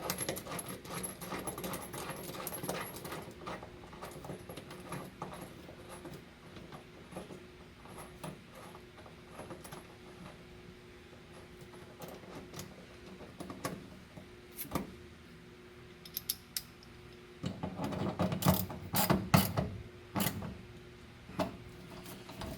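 Seat belt anchor bolt being screwed into place with a ratchet wrench: runs of light ratchet clicks, with louder metal knocks and clicks near the end.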